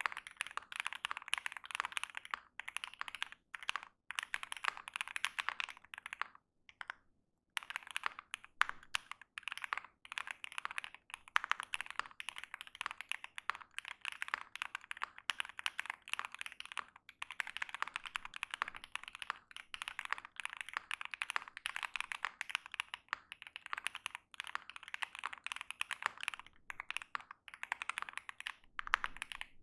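Continuous fast typing on a Mr. Suit mechanical keyboard with stock (unlubed) Tangerine linear switches and Modo Light keycaps: a dense run of keystroke clacks with a brief pause about six seconds in.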